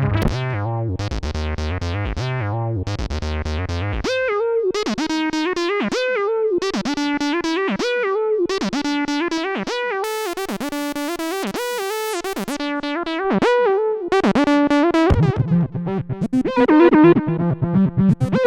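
Roland SE-02 analog monophonic synthesizer playing a fast sequenced line of short notes with gliding pitch. A deep bass part drops out about four seconds in and returns near the end, and a bright hiss opens up briefly midway.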